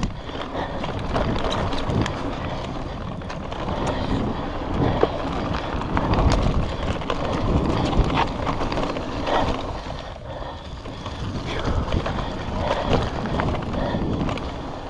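Wind buffeting the camera microphone over the tyres of a Trek Roscoe 7 electric mountain bike rolling fast on a dirt trail, with the bike clattering and rattling over bumps.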